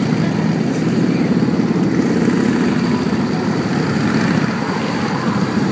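A column of cruiser and touring motorcycles passing close by one after another, their engines running in a loud, steady, continuous drone.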